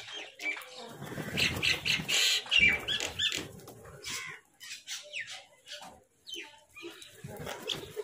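House crows and a common myna squabbling while feeding: a loud run of harsh squawks and calls from about a second in, mixed with wing flaps and short pecking clicks, then scattered quieter calls and clicks.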